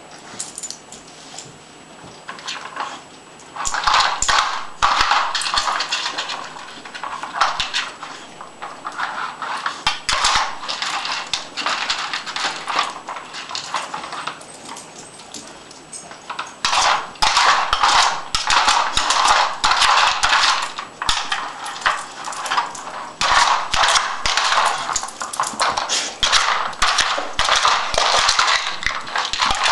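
Plastic Dog Tornado puzzle feeder being pushed and spun by a puppy, its stacked plastic parts clattering and rattling in bursts. The clatter is heaviest from about four to ten seconds in and again from about seventeen seconds on.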